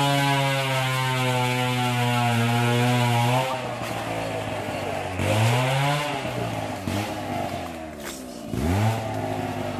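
A small engine running at a steady high pitch. About three and a half seconds in, its note drops, then swings down and back up several times.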